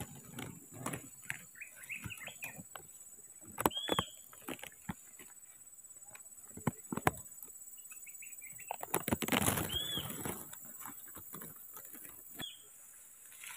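Leaves and stems rustling and crackling as plants are handled and pushed through in dense undergrowth, with a louder rustle about nine seconds in. Three short high chirps come over it.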